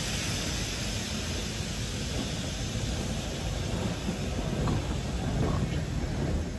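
A rail-washing train rolling past with its wheels rumbling on the rails and a rushing hiss from its high-pressure water spray. The hiss fades as the rear cab car goes by and the train pulls away.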